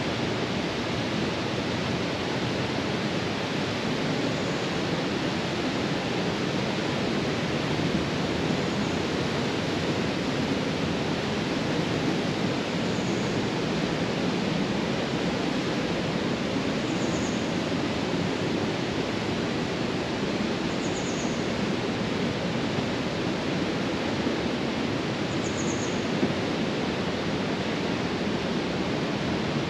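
The Radovna river rushing steadily through the gorge: an even, unbroken sound of fast-flowing water.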